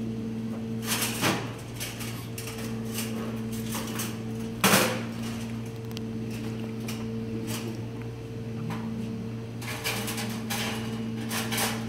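Kitchen clatter: scattered knocks and clicks on a stainless-steel worktop over a steady low electrical hum. The loudest knock comes about four and a half seconds in, and a quick run of clicks follows near the end.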